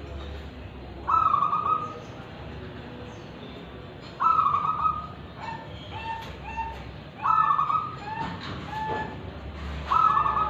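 Caged zebra dove (perkutut) cooing its song four times, about every three seconds. Each phrase opens with a loud held note and trails into a few shorter, lower coos.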